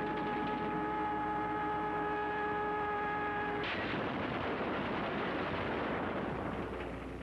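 A steady hum of several held tones, then, about halfway through, a sudden explosion whose rumble fades away over about three seconds.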